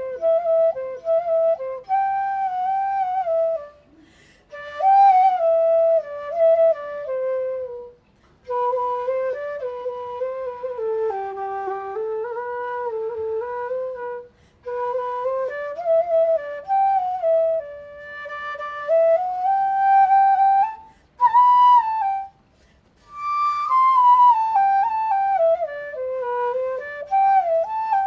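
Solo flute playing a slow, flowing melody in phrases, with short breaks between them.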